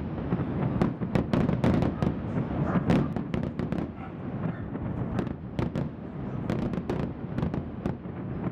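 Fireworks going off in a rapid barrage: many sharp bangs, several a second, over a continuous rumble.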